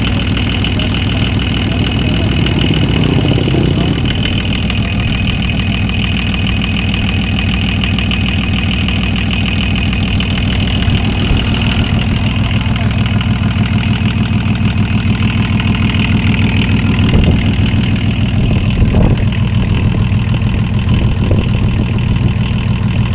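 Volvo six-cylinder diesel engine idling steadily, four of its six glow plugs dead.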